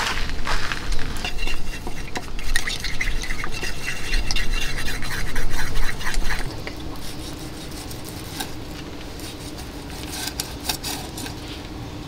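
Wooden chopsticks stirring and scraping around a small cup, mixing in freshly squeezed wasabi. The stirring stops about six seconds in, leaving only a few faint clicks.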